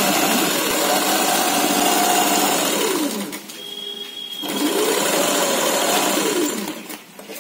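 Sewing machine stitching in two runs, each speeding up and then slowing to a stop, with a pause of about a second and a half between them.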